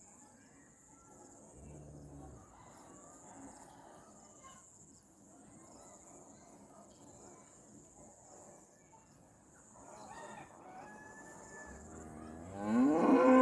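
Farmyard animals calling: a rooster crowing faintly in the distance, then a loud, drawn-out call that rises in pitch and holds, starting near the end.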